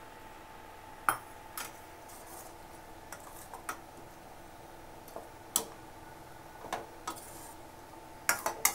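Perforated steel spatula clinking and scraping against a stainless steel pot while stirring chicken in gravy. The clicks are scattered and irregular, with a quick cluster near the end, over a steady background hum.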